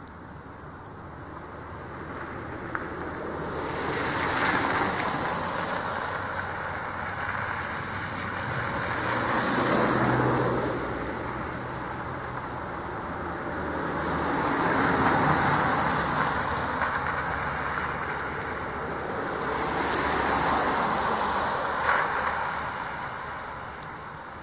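Four cars pass one after another on a snow-covered road, their tyres hissing through the snow and slush; each swells up and fades away over a few seconds, with an engine hum under the second one.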